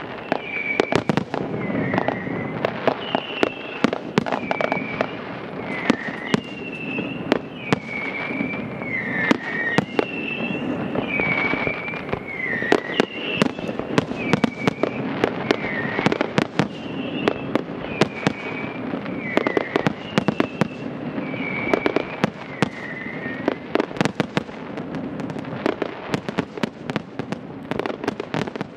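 Fireworks display with shells bursting in rapid, overlapping bangs and crackles over a steady rumble. A high, short chirping sound repeats about once a second and stops near the end.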